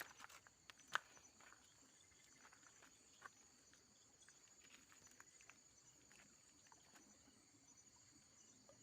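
Faint, steady chirring of night insects such as crickets, with a few light clicks and taps in the first second, the sharpest about a second in.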